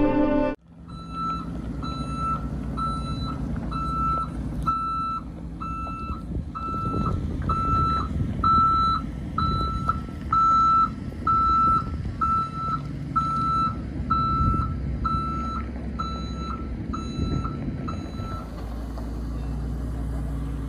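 A school-bus-type shuttle bus backing up: its reversing alarm beeps steadily, a little faster than once a second, over the low running of its engine, and the beeping stops near the end.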